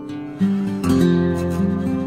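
Background music of an acoustic guitar playing chords, with new chords struck about half a second in and again near the one-second mark.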